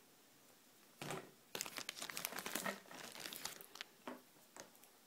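Handling noise: a soft knock about a second in, then a couple of seconds of crinkly rustling and small clicks, with a few last clicks near the end.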